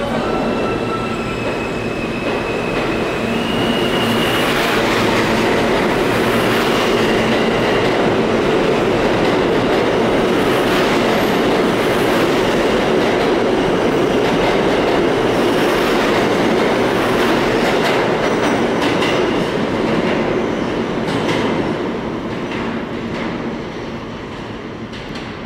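R160 New York City subway train pulling out of the station. A motor whine steps up in pitch during the first few seconds as it accelerates, then the cars run past with a steady rumble of wheels on rail. The sound fades over the last few seconds as the train leaves into the tunnel.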